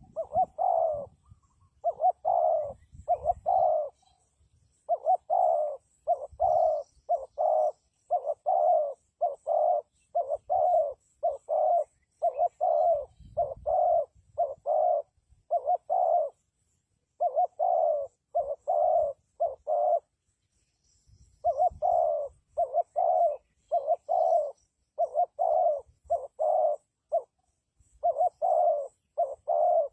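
Spotted dove cooing: a long series of short, low coos, about one or two a second, in runs broken by brief pauses of a second or so.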